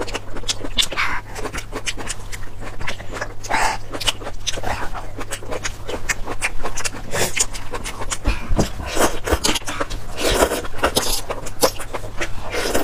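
A metal fork clicking and scraping against a metal baking tray as wet enoki mushrooms are lifted from it, with many quick irregular clicks.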